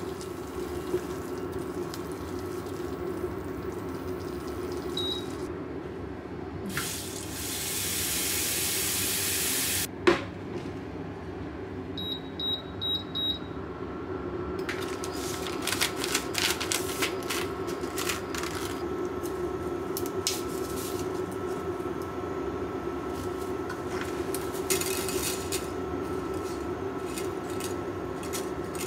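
Tap water running into a frying pan for about three seconds, cut off with a sharp click. A few short electronic beeps from an induction hob follow, then a steady hum with scattered ticking as the water heats in the pan.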